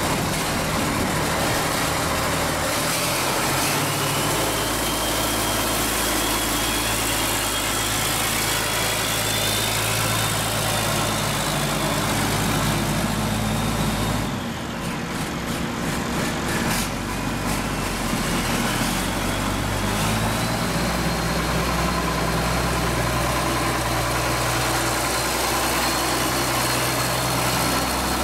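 Ford TW-25's turbocharged six-cylinder diesel running with no exhaust fitted, the turbo outlet open, on a turbo the owner says needs reconditioning. Over the steady engine note a high turbo whistle rises in pitch in the first few seconds and then holds. It falls away for a few seconds in the middle, then climbs back and holds steady.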